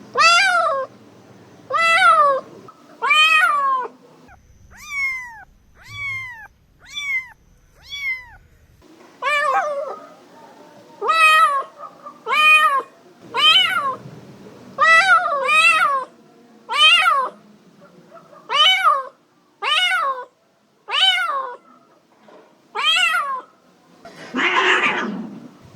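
Domestic cat meowing over and over, about one meow a second, each call rising then falling in pitch. Near the end comes a harsher, raspier call.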